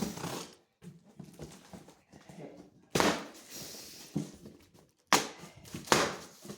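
Cardboard box packaging being handled and opened: several sharp rustling knocks, the loudest about three seconds in and two more near the end, with softer scraping in between.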